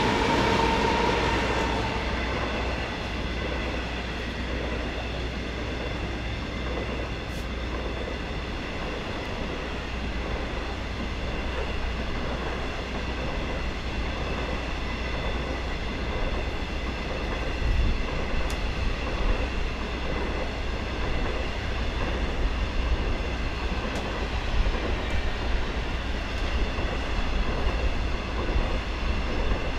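Loaded-or-empty coal hopper cars of an electric freight train rolling past, a steady rumble of steel wheels on rail with a faint high ringing and growing clatter in the second half. The locomotive horn's last note fades out in the first couple of seconds.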